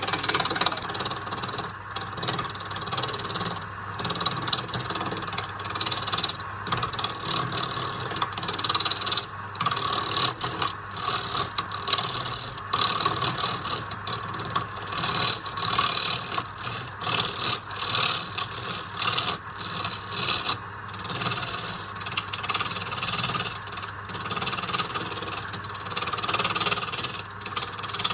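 Pine wood being worked by hand with a tool, scraping in repeated, irregular strokes with short breaks between them, over a faint steady low hum.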